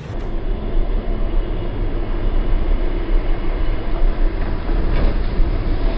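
Train running along the tracks: a steady, loud rumble with no single crash or impact.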